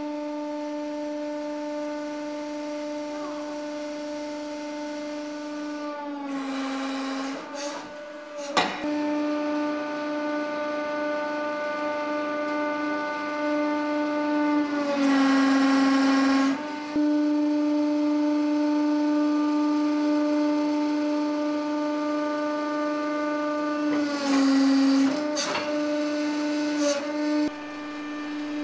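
Hydraulic press pump running with a steady whine. Three times its pitch drops slightly and a rushing noise rises as the ram loads up against the piece being crushed. A single sharp click comes about eight and a half seconds in.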